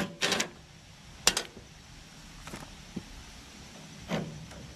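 A cordless driver briefly running a loosened nut off the tensioner-arm pulley of a steel mower deck, then a single sharp metal clink about a second in, followed by light knocks of the pulley being handled.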